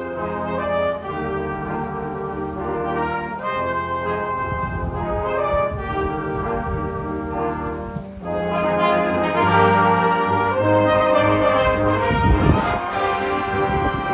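Brass music playing: several brass instruments holding and changing chords together, loud and steady, with a short break about eight seconds in.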